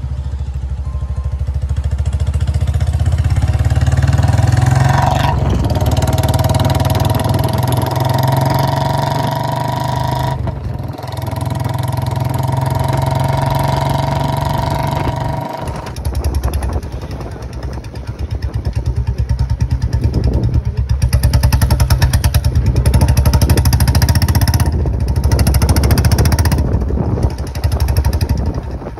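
Royal Enfield Bullet 350's single-cylinder engine running at road speed through a short-bottle 'Mini Punjab' aftermarket silencer, giving a loud, steady exhaust beat. About halfway there is a short break, after which the separate exhaust pulses stand out more plainly and the sound dips and swells a few times with the throttle.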